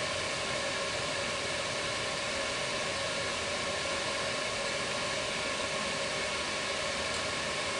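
Milling machine running steadily, a constant motor hum with a few high whining tones over a noise hiss.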